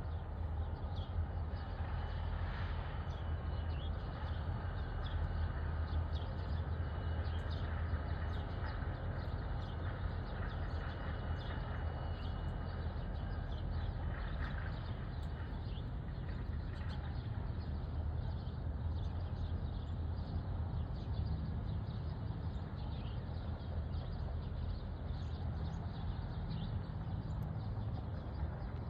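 Freight train of tank cars rumbling steadily as it rolls out, a low, even rumble with no horn or bell.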